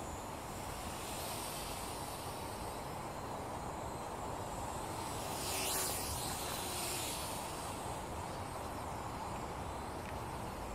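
Steady hiss with the faint buzz of a small toy quadcopter's motors, and a louder whoosh that rises and fades about halfway through.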